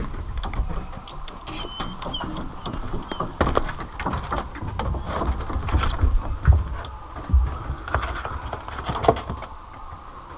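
Pickup truck driving slowly on a rough sandy dirt road: rattles and knocks from the truck and its load over a steady hum, with wind rumbling on the microphone.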